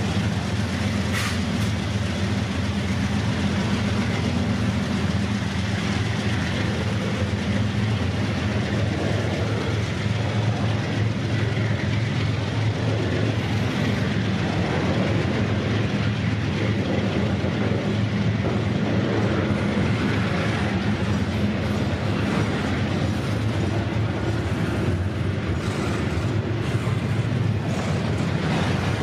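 A double-stack intermodal freight train passing close by: steady rumble of the container-laden well cars rolling on the rails, over a low steady drone. One sharp click comes about a second in.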